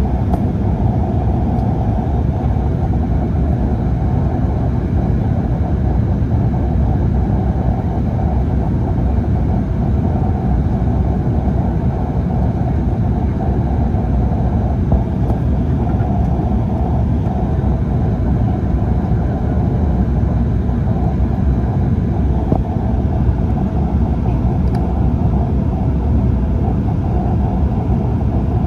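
Steady cabin noise inside an airliner descending on approach: a deep, even rush of engine and airflow noise with no change in level.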